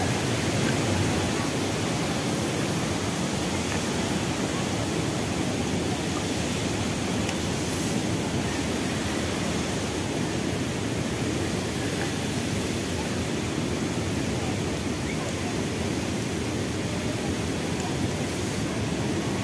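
Steady rushing of a large waterfall, an unbroken wash of falling water.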